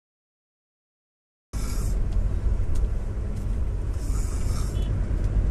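Dead silence, then about a second and a half in a loud, steady low rumble cuts in abruptly and keeps going without a break.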